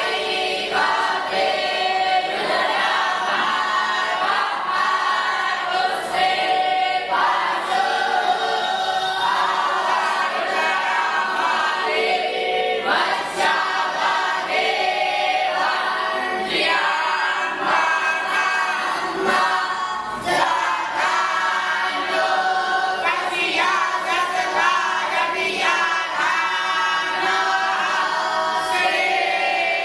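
Many voices singing together in unison, continuous and choir-like.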